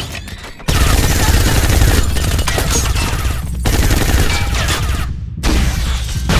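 Automatic gunfire in long sustained bursts from a gun fired out of a car, starting about a second in, with a short break and then a second burst near the end.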